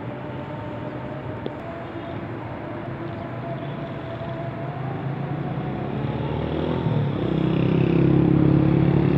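Steady rush of a river flowing over rapids, with a motor vehicle engine that grows louder and nearer in the last couple of seconds.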